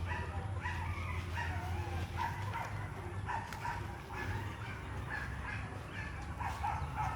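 Many short animal calls, overlapping and repeating several times a second, over a steady low hum.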